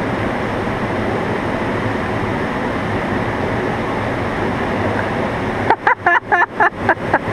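Steady rush of river water below a dam. Near the end it is broken by a quick string of short, high voice sounds.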